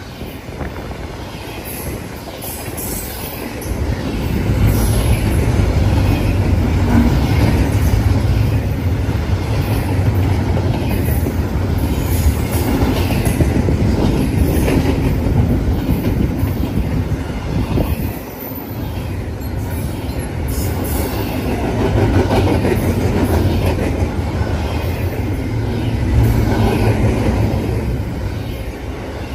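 Double-stack intermodal freight cars of a BNSF train rolling past at speed: a steady heavy rumble of steel wheels on rail with clicking over rail joints and occasional high wheel squeal. It swells about four seconds in, dips briefly about two-thirds of the way through, then builds again.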